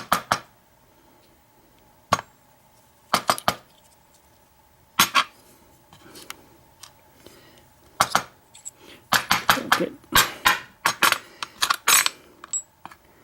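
Sharp metallic clicks and clinks of a tool working in the chambers of an American 700 series padlock, pulling out the pin springs. Single clicks come every second or two, then a busier run of clicks in the last few seconds.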